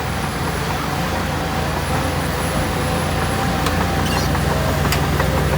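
Heavy diesel earthmoving machinery running steadily, with a few light clicks and knocks in the second half.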